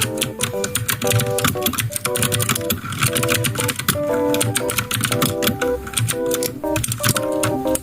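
Fast typing on a COX CK420 mechanical keyboard with clicky blue switches: a dense, rapid run of sharp key clicks, over background music.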